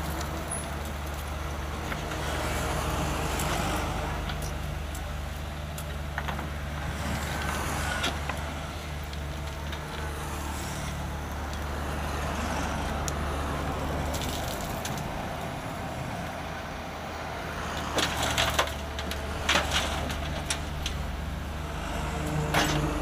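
Cat mini excavator's diesel engine running steadily as it digs, with soil and stones crunching and scraping in the bucket. There is a cluster of sharp knocks and rattles of rock about eighteen to twenty seconds in.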